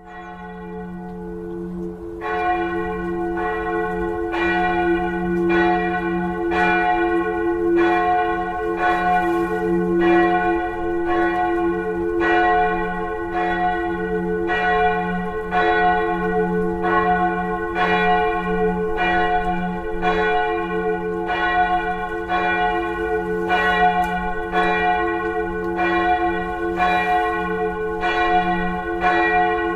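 Church tower bells ringing: regular strokes a little faster than one a second over a steady hum of the bells' lingering low tones. The strokes grow in over the first two seconds.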